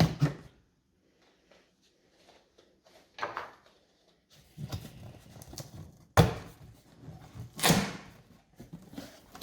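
Thumps, knocks and rustling of a boxed PC case being handled and opened, with two sharp, loud thuds in the second half.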